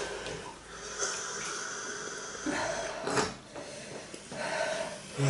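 People breathing hard and sniffing through the burn of hot fresh chili peppers they have just eaten, with a short, loud burst of breath about three seconds in.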